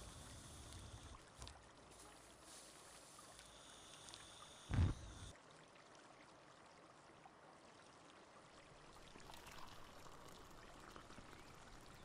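Faint water sound, running or being poured, with a short low thump about five seconds in.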